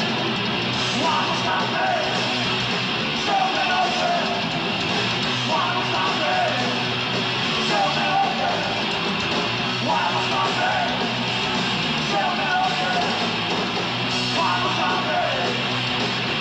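Live punk rock band playing at full volume: distorted electric guitars, bass and drums, with a short melodic phrase coming round about every two seconds.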